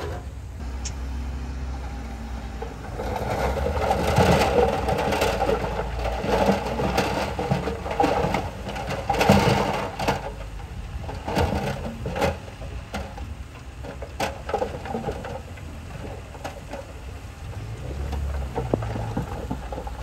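Heavy earthmoving machinery at work: a diesel engine runs low throughout. From about three to ten seconds in there is a louder stretch of rough crackling noise with sharp knocks, then scattered knocks.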